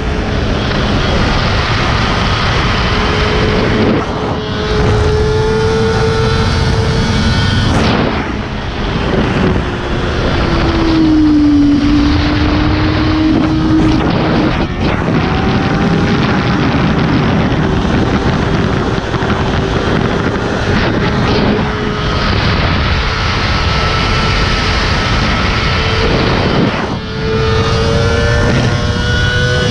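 Sport motorcycle engine running steadily at highway speed under a loud wind roar. Its pitch sinks and climbs back about ten seconds in, and the sound drops out briefly a few times, as at gear changes or throttle lifts.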